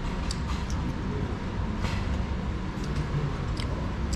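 Steady low rumble of room noise with a faint steady hum, broken by a few light clicks.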